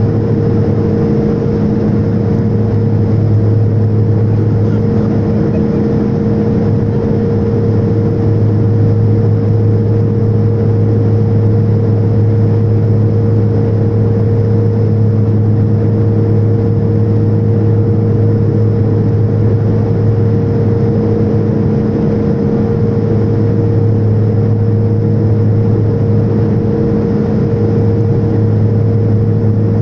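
Steady drone of a turboprop airliner's engines and propellers, heard inside the passenger cabin: a low, even hum with a few fixed tones over a constant rush of air.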